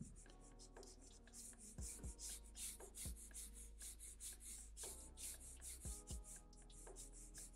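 Felt-tip marker scratching across paper in quick short strokes, several a second, as hatching lines are drawn. Faint.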